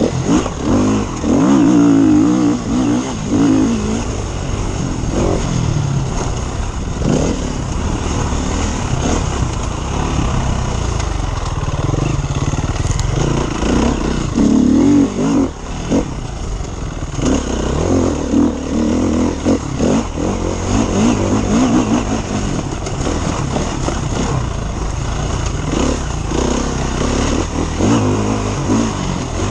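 KTM enduro motorcycle engine, heard from the bike itself as it is ridden hard over rough sandy track. The revs climb and drop again and again as the rider works the throttle and gears, with knocks and rattles from the bike over the bumps.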